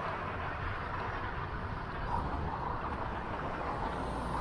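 Steady city street traffic noise, a low rumble with hiss, heard from a bicycle riding along the road.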